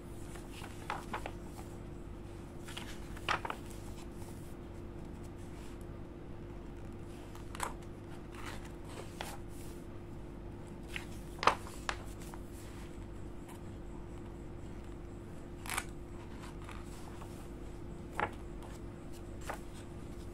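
Glossy pages of a large photobook being turned by hand: a short paper swish or crackle every few seconds, the loudest about halfway through, over a steady faint hum.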